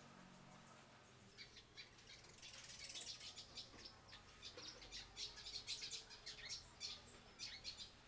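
A group of sparrows chirping: many short, quick high chirps overlapping one another, starting faintly about a second in and growing busier.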